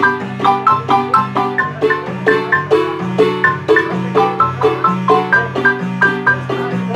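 Marimba music: several mallet parts playing quick, rhythmic chords and melody over a low bass line, about three to four strokes a second.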